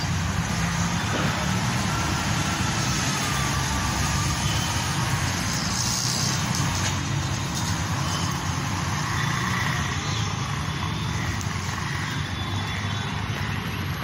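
Steady city background noise: a low rumble of road traffic under a constant hiss.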